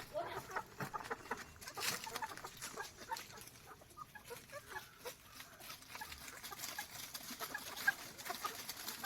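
A flock of desi chickens clucking, many short calls overlapping, with scattered clicks.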